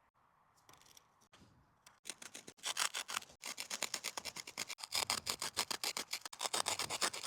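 Wooden stick rubbed fast back and forth over a mixture of potassium permanganate and sugar: a quick scratchy grinding at several strokes a second, starting about two seconds in. It is an attempt to ignite the mixture by friction.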